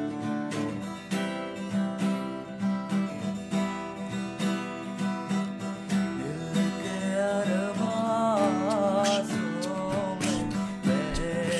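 Acoustic guitar strummed in steady chords, a playback of a recording made with a FIFINE K670 USB microphone. About two-thirds of the way through, a wavering singing voice joins briefly over the guitar.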